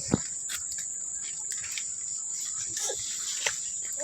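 Steady, high-pitched chirring of insects, with a sharp knock a moment in and a softer one near the end.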